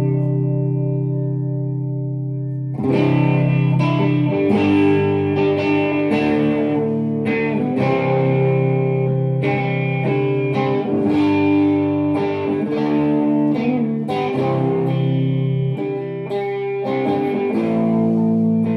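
Harley Benton SC-500 Les Paul-copy electric guitar with humbucker pickups, played through a Vox AC30 valve amp turned up a little for a mildly overdriven tone. A chord rings out and fades. About three seconds in, chords and single notes start being strummed and picked in a steady rhythm.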